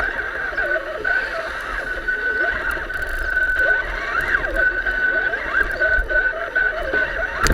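Electric motor and gearbox of a radio-controlled crawler truck whining while it drives, the pitch rising and falling with throttle over a steady high whine that keeps breaking off.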